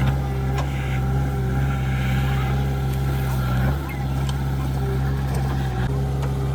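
Heavy diesel machinery engine running steadily under load, its note dipping briefly about halfway through and changing slightly again near the end.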